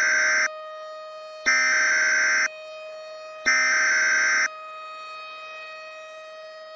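Emergency Alert System (SAME) header: three one-second bursts of shrill digital data tones, evenly spaced about a second apart, over a faint steady tone. It is the header that opens a new alert, just ahead of the Weather Radio warning alarm tone.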